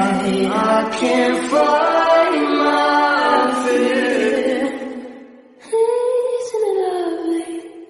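A slow song with long, held sung notes that slide from pitch to pitch. It fades down about five seconds in, then a new sung phrase comes in and falls in pitch.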